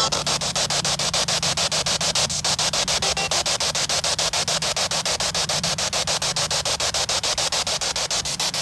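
Handheld spirit box, a radio sweeping rapidly through stations, giving out loud static chopped into about eight even pulses a second over a steady low hum.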